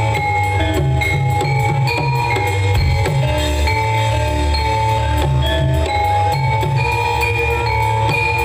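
Javanese gamelan music for a jaran kepang horse dance: metallophones play a melody over drums and a heavy low end.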